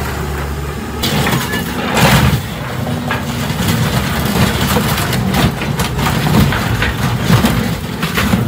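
Excavator's diesel engine running under load while its grapple crushes and tears the steel body of a school bus, with repeated cracks and crunches of metal giving way over the engine's steady hum.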